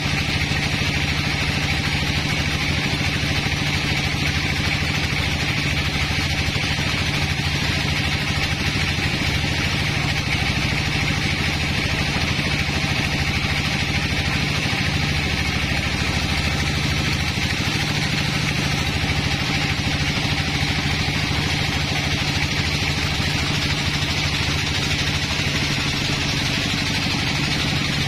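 Sawmill band saw running steadily while its blade rips lengthwise through a very hard log on the carriage: a constant motor hum under a steady higher-pitched saw whine.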